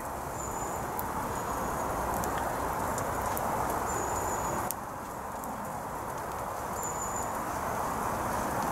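Wood campfire crackling: scattered sharp pops over a steady hiss. A few short, thin high whistling notes come and go.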